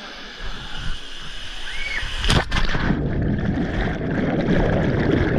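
A splash into a waterfall pool about two seconds in, followed by loud churning water with the treble cut away, sounding muffled.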